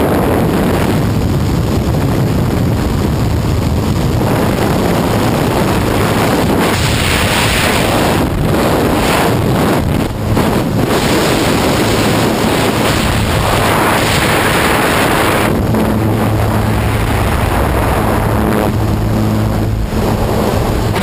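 Steady drone of a skydiving jump plane's engine mixed with loud wind rushing over the microphone.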